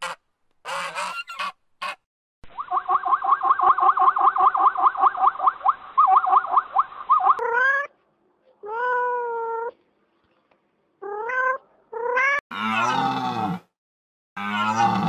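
A run of animal calls. It opens with short calls from swans, then comes a rapid pulsing sound at about seven pulses a second for about five seconds. After that a domestic cat meows four times, and near the end a red deer stag gives two deep, rough calls.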